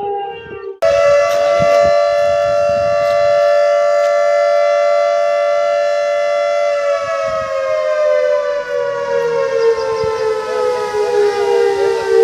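Dam warning siren sounding to warn of a gate opening for water release. A loud, steady wail starts abruptly about a second in, holds one pitch for about six seconds, then slowly falls in pitch.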